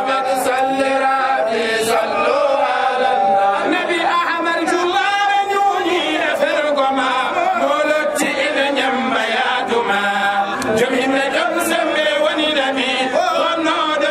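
A group of men chanting a devotional song together in unison, one voice singing into a microphone over the others, without instruments.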